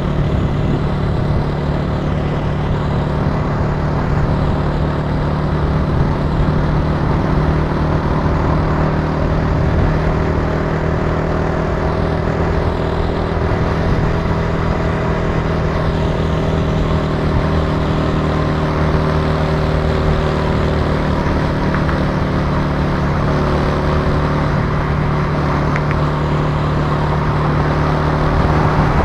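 Italika TC300 motorcycle engine running steadily while the bike cruises, heard from the rider's seat. Its pitch rises and falls slightly with the throttle around the middle.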